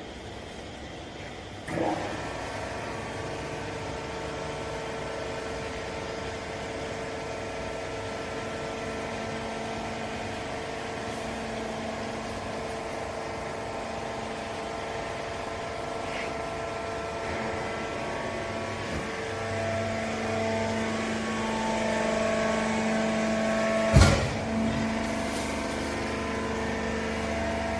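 Hydraulic baling press running: its pump motor starts with a clunk and runs with a steady whine, its tone changing and getting heavier toward the end as the press works under load. One sharp bang near the end is the loudest moment.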